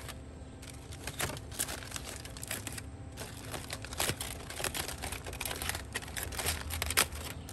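Aluminium foil crinkling and crackling as a foil wrap is unfolded by hand, an irregular run of crisp crackles with the sharpest one near the end.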